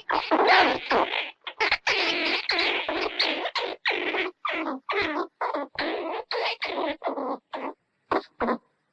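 Squirrel chattering: a rapid run of short, harsh calls, packed tightly at first and then spaced at about three a second, with a brief pause before two last calls near the end.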